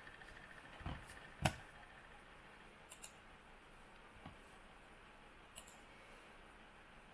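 A few clicks of a computer mouse. Two louder ones come close together about a second in, then fainter clicks follow a second or so apart.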